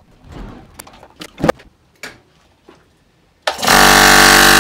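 Faint scattered clicks and handling noises. Then, about three and a half seconds in, a 220 V single-phase air compressor's electric motor and piston pump start up and run with a loud, steady hum, on a test run after its cylinder-head gasket was replaced.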